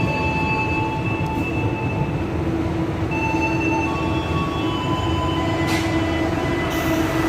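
Minangkabau Express diesel multiple unit arriving at a station platform: a steady low rumble of engine and wheels, with high steady squeals that change pitch every second or so. A strong steady tone joins about three seconds in.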